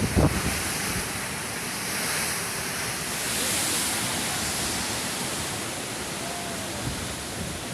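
Ocean waves rushing and breaking, with wind buffeting the microphone; the rush swells for a moment about three seconds in.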